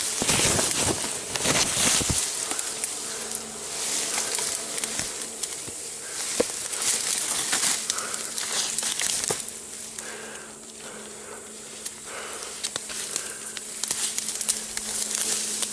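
Footsteps crunching and crackling through dry forest litter and brush, loudest in the first two seconds and again near the end. From about two seconds in, a steady insect buzz hangs beneath it.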